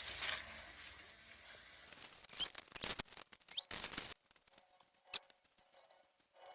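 Rustling and handling of small items and packaging, with several sharp clicks and taps; the rustling stops about four seconds in, leaving only a couple of faint taps.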